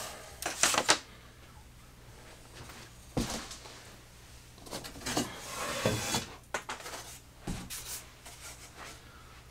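Laser-cut wooden kit sheets being handled and shuffled on a bench: a few short knocks and scrapes as sheets are set down, slid against each other and picked up.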